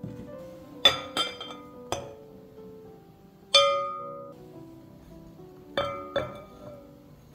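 Glass dishes clinking: about six sharp, ringing knocks of cups and bowls against a glass mixing bowl, two close together about a second in and again near the end. Soft background music plays underneath.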